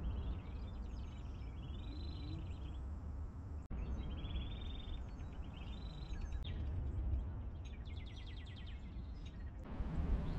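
Small songbirds singing repeated short trills and chirps over a steady low rumble of outdoor background noise. The sound breaks off abruptly twice.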